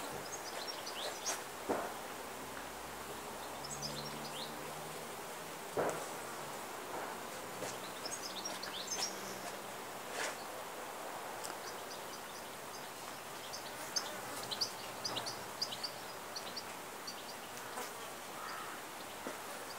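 Garden ambience: small birds chirping in short, high clusters, with a faint low buzz of an insect now and then. A few sharp knocks, the loudest near two, six, ten and fourteen seconds in, come from the bow being handled and strung.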